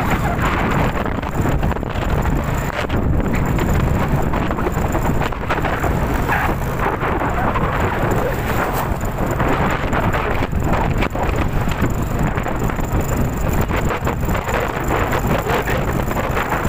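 Strong typhoon wind, a loud steady rush with heavy low rumble from gusts buffeting the microphone.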